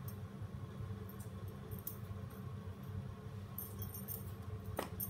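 Quiet room tone: a steady low hum with a few faint high ticks, and a single sharp click near the end.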